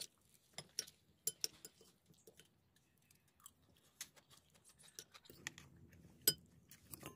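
Metal spoons clinking and scraping against ceramic plates while people eat rice, a scatter of light, irregular clicks.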